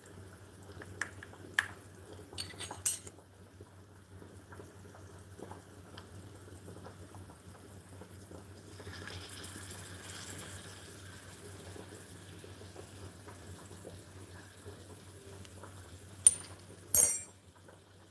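Miniature cooking pots and utensils being handled, with scattered small clinks and taps. A few seconds of water being poured come near the middle, and two sharp clinks sound near the end.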